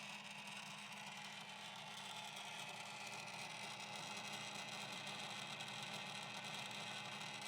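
Brass pump belt-driven by a 1/3 hp electric furnace motor, running with a steady hum while it pumps calcium chloride ballast fluid out of a tractor tire.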